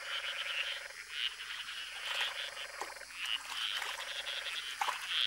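A dense chorus of Madagascar golden frogs calling at a rain pool: many overlapping high, rattling calls that swell and fade every second or so. It is a breeding chorus that follows the first rain of the season.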